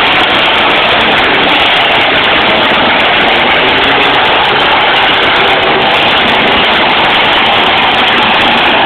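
Loud, steady din of several demolition-derby cars' engines running at once in the arena.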